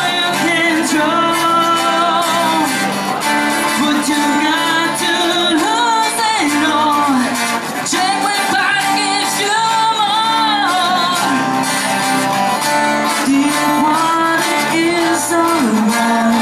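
Live song: a woman singing into a microphone over a strummed acoustic guitar.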